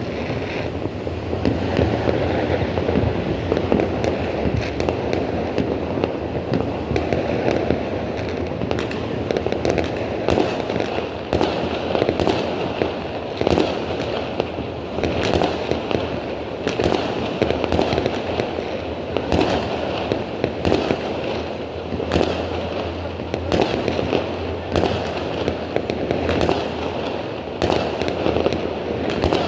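Fireworks going off without pause: sharp bangs about every second over a continuous dense crackle of smaller bursts.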